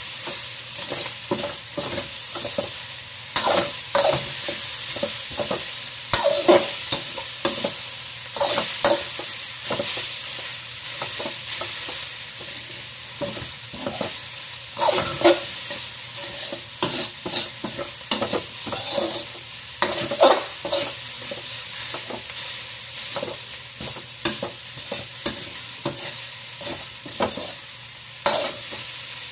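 Fried rice with shrimp and squid sizzling in a hot pan while a spatula stirs and tosses it. The steady frying hiss is broken by frequent, irregular scrapes and knocks of the spatula against the pan.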